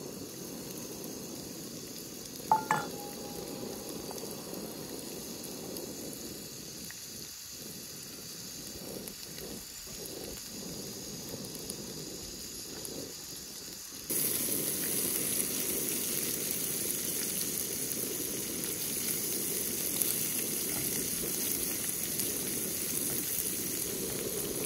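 Guanciale sizzling in a small frying pan over a gas canister camp stove, with one sharp metallic clink about two and a half seconds in. About halfway through the sizzle turns suddenly louder and brighter and stays that way.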